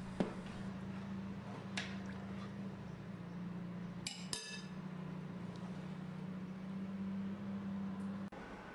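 A metal spoon stirring lentils and couscous into a yogurt drink in a glass bowl, knocking lightly against the glass a few times, with a brighter ringing clink about four seconds in. A steady low hum runs underneath and stops shortly before the end.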